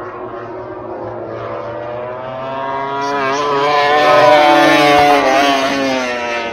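A racing motorcycle at full speed passes the grandstand. Its engine note builds to a peak about four seconds in, climbing in pitch with quick wavers, then drops in pitch and fades as it goes by.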